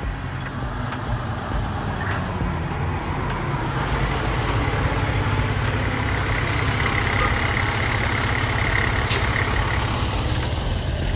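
Fire engine's diesel engine running as the truck approaches and drives past close by, the rumble growing louder over the first few seconds. A steady high whine comes in partway through and drops away near the end.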